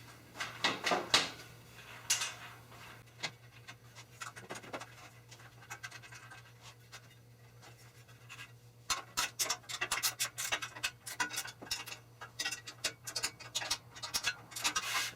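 Metal hardware being handled on an aluminium extrusion frame: a few scrapes and knocks, then from about nine seconds in a quick, irregular run of sharp clicks and ticks, over a faint steady hum.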